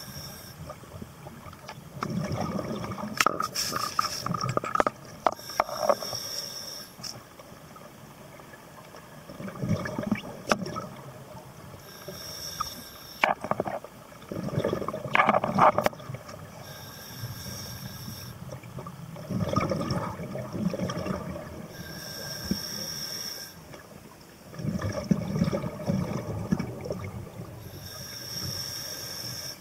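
Scuba diver breathing underwater through a regulator, about every five to six seconds: a short hissing inhale, then a longer burst of bubbling exhale. A few sharp knocks are heard among the breaths.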